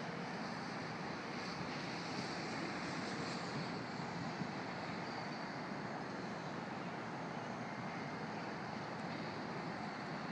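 Steady outdoor background noise: an even rushing hiss with no distinct events.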